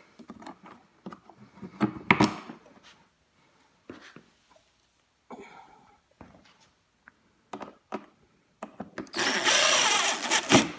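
Scattered knocks and clicks of parts being handled as the battery is fitted back into a kids' electric quad. Near the end comes a loud, harsh noise lasting about a second and a half.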